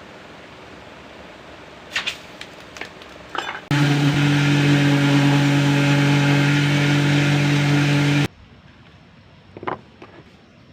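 A few clicks and knocks, then an electric power tool running steadily at full speed for about four and a half seconds, a loud motor hum with hiss, starting and stopping abruptly.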